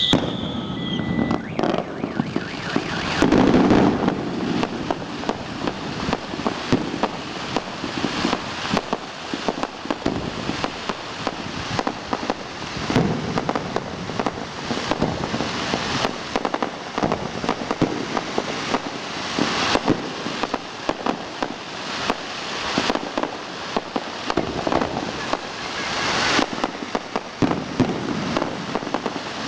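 Fireworks display: a dense, continuous crackle of many small pops and bangs, with heavier bursts about three seconds in and again a few times later.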